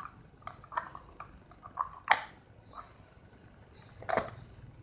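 Plastic lid of a manual chopper being pressed and twisted onto its clear plastic bowl: a series of light plastic clicks and knocks, the sharpest about two seconds in and another just after four seconds.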